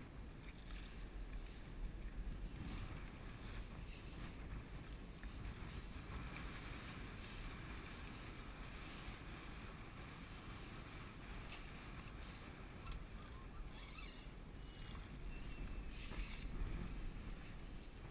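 Wind buffeting the microphone with water lapping and splashing against a plastic fishing kayak's hull on choppy water.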